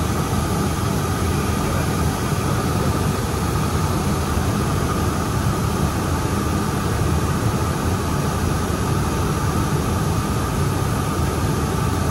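Steady cockpit noise of a Cessna Citation Bravo descending on final approach: rushing airflow and the hum of its Pratt & Whitney Canada PW530A turbofans, even and unchanging throughout.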